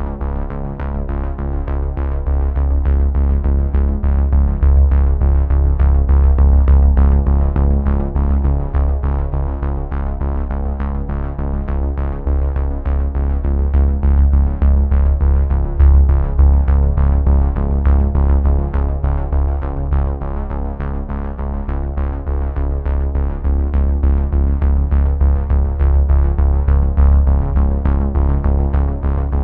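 Electronic background music with a steady beat and sustained synthesizer notes.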